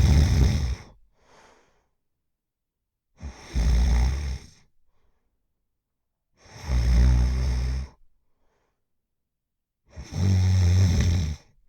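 Middle-aged woman snoring loudly: a low, rasping snore about every three seconds, the first ending just after the start and three more following, with silence between.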